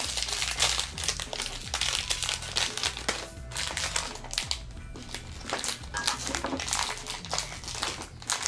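Foil wrapper of a blind-box toy crinkling and crackling as it is torn open and handled, a dense run of crackles that eases off for a moment in the middle.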